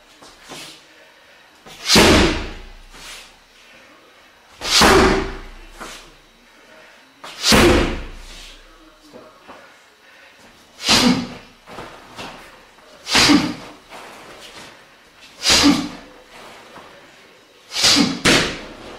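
Dropping hammer-fist and knee strikes landing on a padded car tyre on the floor. A loud slam comes every two to three seconds, eight in all, and the last two fall close together near the end.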